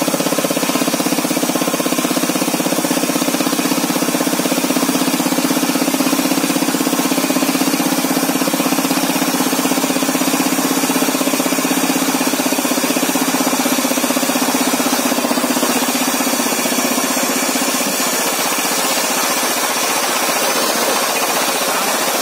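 MK5 rock drill boring a 110 mm hole in rock, its hammer striking rapidly in a steady, loud clatter. A low hum under it fades out near the end.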